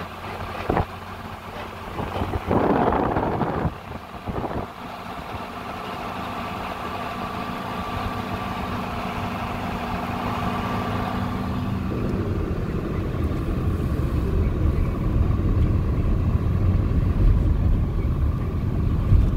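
A motor vehicle driving, its engine running steadily with a few knocks in the first few seconds. About halfway through, the engine tone drops away under a low road or wind rumble that grows slowly louder.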